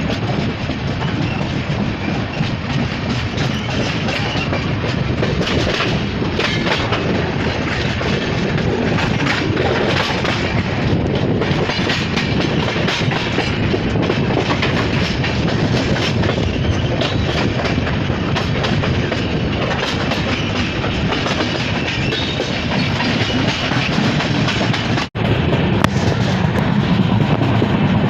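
Mumbai suburban electric local train running on the track, a steady rumble with the clatter of wheels over the rails. The sound breaks off for a moment about 25 seconds in.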